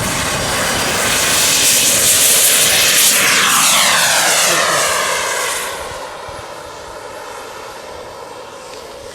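Twin turbine engines of a large radio-controlled model jet tanker on its takeoff run: a loud jet roar that builds, passes close with a falling pitch about three seconds in, then drops away about six seconds in as the model climbs out.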